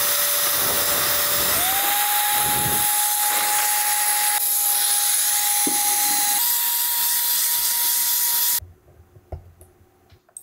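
Audwierr battery-powered handheld electric air duster (jet blower) running: a rushing blast of air with a high fan whine that steps up in pitch twice as the fan speed setting is raised, then cuts off suddenly about eight and a half seconds in.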